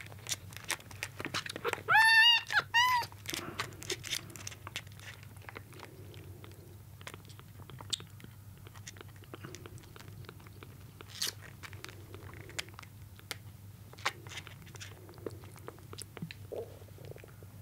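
A young kitten mewing loudly twice about two seconds in, then a kitten suckling at a nursing bottle's nipple: a string of small irregular clicking and smacking sounds.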